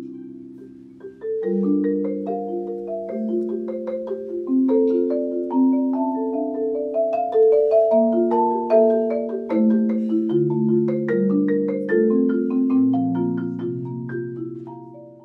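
Concert marimba played with four mallets: layered, overlapping held notes and chords in the low and middle range, with a moving melody above them. The playing fades out near the end.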